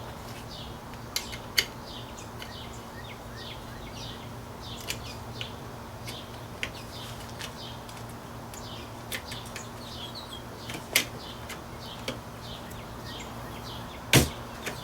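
Faint clicks, taps and rustles of a LiPo battery and its wires being worked into an airsoft AK's battery compartment, with one loud knock near the end. A steady low hum runs underneath.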